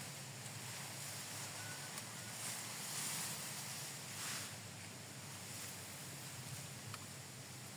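Strong wind buffeting the microphone in gusts, with grass rustling and a couple of faint clicks.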